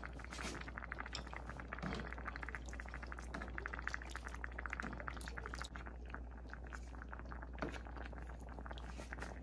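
Thick fish stew bubbling in a pan as it simmers, a steady run of small pops.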